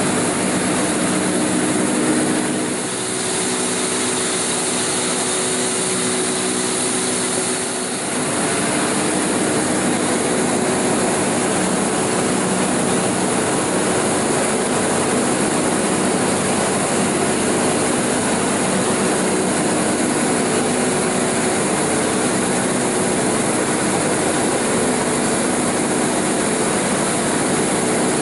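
Double-shaft multi-rip saw running: a steady, loud machine noise from its spinning saw arbors and turning feed rollers, with a couple of brief dips in level in the first eight seconds.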